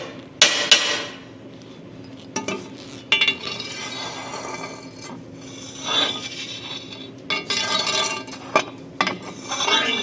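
Steel rod cleaning tool scraping and clinking against the inside of a Dana 44 axle tube as debris is dragged out, in irregular metal scrapes with sharp clicks.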